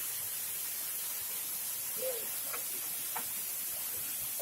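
Steady hiss of rushing water from the waterfall stream. Two light clicks come about a second apart in the middle, just after a short faint call.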